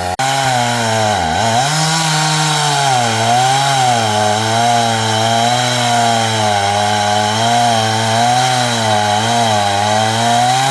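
Two-stroke chainsaw sawing up a log at full throttle. Its engine pitch dips sharply about a second in as the chain bites, then holds high with a gently wavering pitch under load until it stops just after the end.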